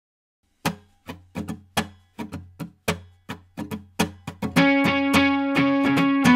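Background guitar music starting about half a second in: short struck notes and chords a few times a second, then from about four and a half seconds in, held ringing guitar notes.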